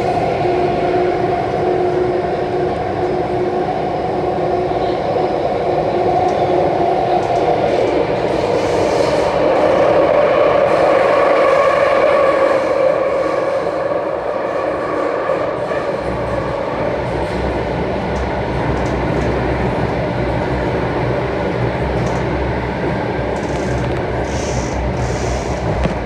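Alstom Metropolis C830C metro train running, heard from inside the carriage: a steady mix of motor whine tones over wheel-and-track noise. A deeper rumble joins about sixteen seconds in.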